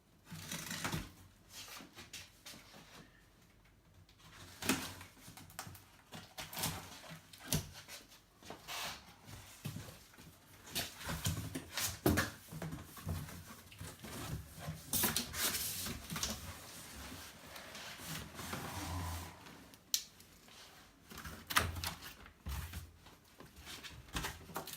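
Cardboard box and packing being opened and handled: irregular knocks, clicks, scrapes and rustles.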